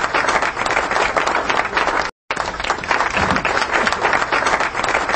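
Applause from a crowd, a dense clatter of many hands. The same short stretch is heard twice, with a brief gap about two seconds in, and it stops abruptly at the end.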